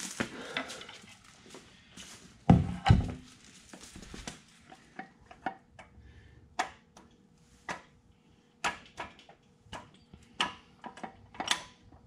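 Metal clanks and clicks as a rebuilt manual transmission hanging in lifting straps is settled onto a transmission jack and its fittings are worked by hand: two heavy thumps about two and a half seconds in, then a string of separate sharp metallic clicks about once a second.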